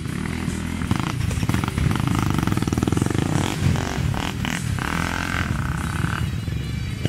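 Trail motorcycle engine running, its revs rising and falling unevenly as the throttle is worked.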